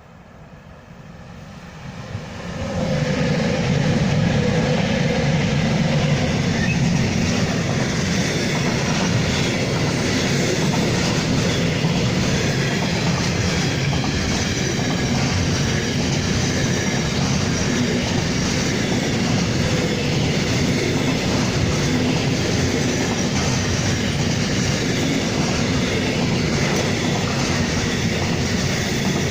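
A train running past close by on the tracks: the rumble swells quickly about two to three seconds in, then holds loud and steady.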